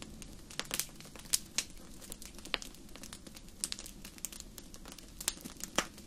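Fire crackling: irregular sharp pops and snaps over a faint low hiss.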